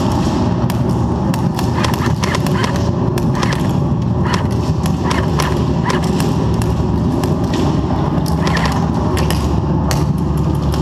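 Airsoft guns firing around an indoor arena, heard as irregular sharp clicks and snaps, some in quick clusters, with BBs knocking on the walls. A steady low hum runs underneath.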